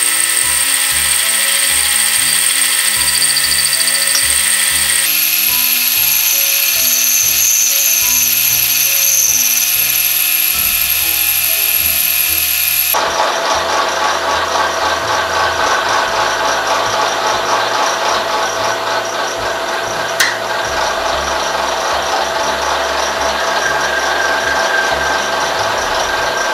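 Vertical milling machine with a large spiral end mill cutting the octagon flats along a rifle barrel blank, a steady metal-cutting whine. The cutting sound changes abruptly about five and thirteen seconds in. Background music plays throughout.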